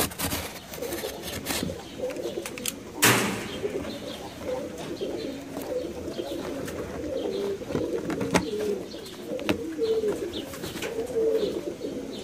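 Domestic pigeons cooing over and over in low, wavering calls, with a few sharp clicks and one brief loud scrape about three seconds in.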